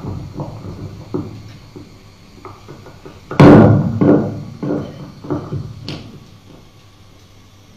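A series of about eight knocks and thumps, some ringing briefly with a low pitch. The loudest comes about three and a half seconds in, and they stop after about six seconds.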